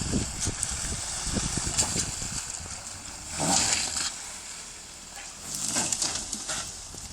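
Off-road 4x4 moving over a rough dirt track: irregular low crunching and knocks from the tyres and suspension, with two hissing swishes about halfway through and near the end.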